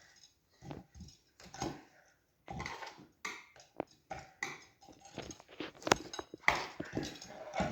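Irregular clinks, knocks and scrapes of metal tire spoons working a dirt bike tire against its wheel rim, with one sharp click about six seconds in.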